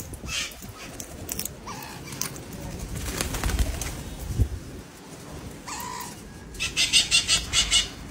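Parakeets at close range: wing flapping as a bird takes off from a hand, then near the end a quick run of about eight sharp, harsh parakeet calls, the loudest sound here.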